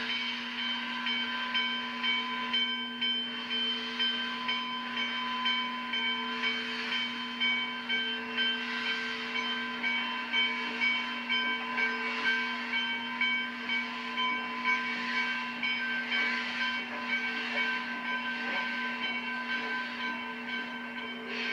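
Steam locomotive pulling away, hissing loudly from its open cylinder cocks, with a rhythmic pulsing of exhaust chuffs. A steady hum and high whine sit underneath.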